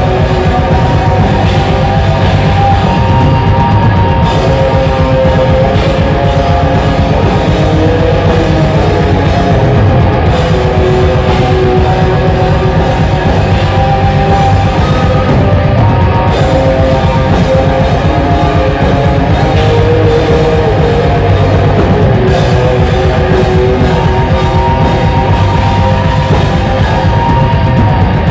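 Live metal band playing loud: distorted electric guitars hold slow, sustained melodic lines over bass and constant rapid drumming.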